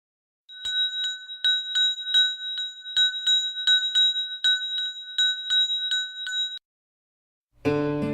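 A bell ringing with rapid repeated strikes, about three a second, for about six seconds, then cutting off suddenly; music starts near the end.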